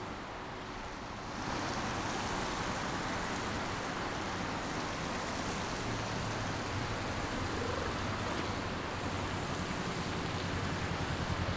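Street traffic: a steady rushing hiss of tyres and engines from passing vehicles that gets louder about a second in, with a low pulsing engine rumble growing near the end.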